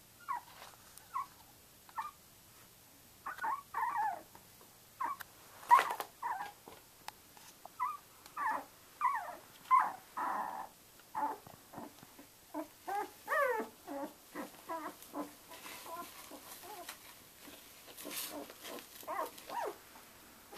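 Twelve-day-old Samoyed puppies squeaking and whimpering in a long run of short calls, many sliding up or down in pitch.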